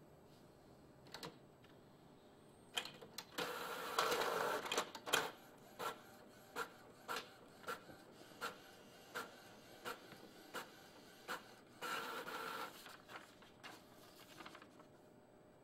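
Epson Artisan 700 inkjet printer printing a page: a whirring, clattering stretch about three to five seconds in, then a regular click about every 0.7 s, and another whir near twelve seconds before a few last clicks.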